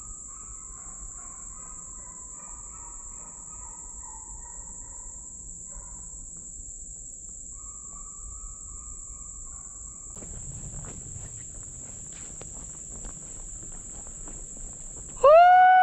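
Steady high-pitched drone of insects, with faint distant wavering calls in the first half. From about ten seconds in, footsteps crackle through leaf litter. Right at the end a loud animal call starts, rising and then falling in pitch.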